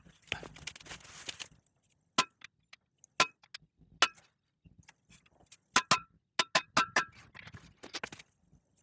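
Hammer striking a tool held against a stuck eccentric bottom bracket wedge in a bicycle frame's bottom bracket shell: about ten sharp metal-on-metal taps with a brief ring, irregularly spaced and several in quick succession near the middle. A short rustle of handling comes first.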